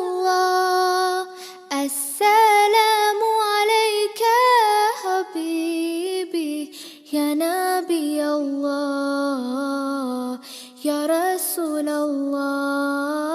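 A high voice sings a selawat, a devotional song in praise of the Prophet Muhammad, drawing out long melismatic notes with wavering ornaments and short pauses between phrases.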